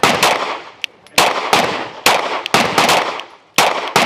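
A string of about eight gunshots at an irregular pace, each sharp crack followed by a short trailing echo.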